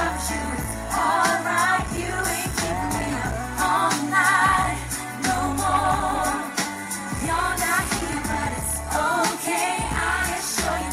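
Female pop trio singing live into handheld microphones over a pop backing track through the PA, with a steady bass beat.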